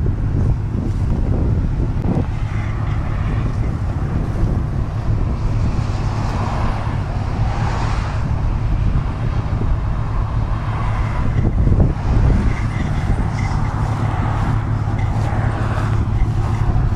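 Road traffic on a highway: vehicles passing, their tyre and engine noise swelling and fading a few times over a steady low rumble of wind on the microphone.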